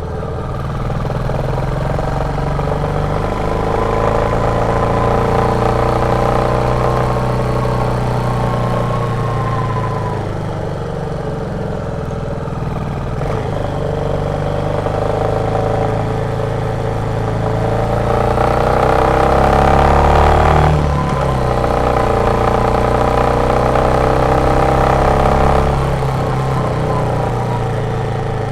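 Royal Enfield Meteor 350's single-cylinder engine thumping under way while the motorcycle is ridden. The engine note climbs slowly with throttle, falls back about ten seconds in, climbs again, then drops sharply about two-thirds of the way through and once more near the end.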